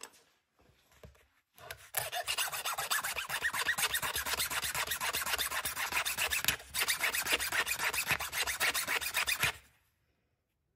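End of a stainless steel guitar fret being rubbed back and forth on a flat hand file, a rapid rasping of quick short strokes that starts about two seconds in, breaks off briefly midway, and stops near the end. The fret end is being filed to length and shape.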